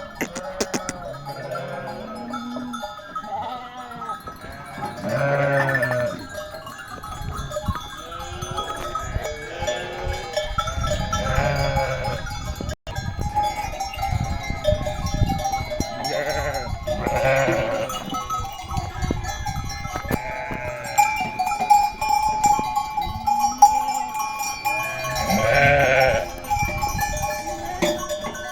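A flock of sheep bleating, with calls repeating and overlapping every few seconds.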